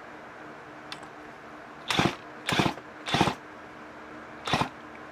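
Four short metallic rasps as a clutch tool turns the Poulan chainsaw's clutch and crankshaft, which spins freely because the spark plug is out and there is no compression to hold it. A faint steady hum runs underneath.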